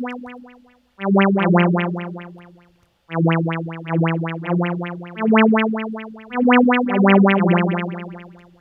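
Harmor saw-wave synth playing a short phrase of low notes through a resonant low-pass filter. A tempo-synced LFO opens and closes the filter cutoff, pulsing the tone about seven times a second. Each note fades away over a second or two under its volume envelope.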